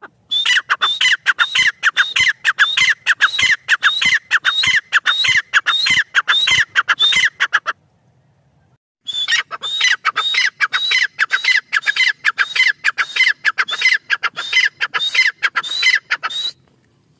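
Grey francolin calling: two long runs of rapid, repeated shrill notes, about two a second, broken by a pause of about a second midway.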